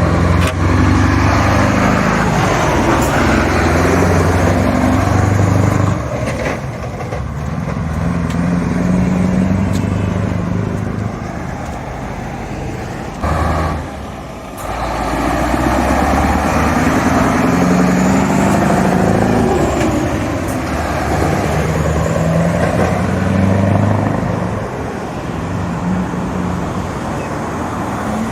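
Straight-piped V8 diesel of a Scania T144 truck pulling under load, its loud exhaust note climbing in pitch and dropping back in steps as it changes gear. It eases off and goes quieter in the middle, then pulls up through the gears again.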